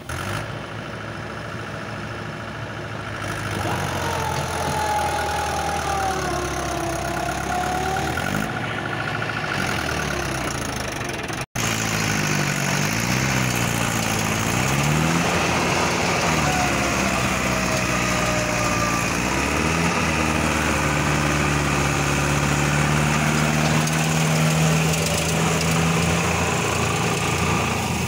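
Tractor diesel engines running and revving up and down several times, the work of pulling a fully loaded trolley stuck in soft field ground.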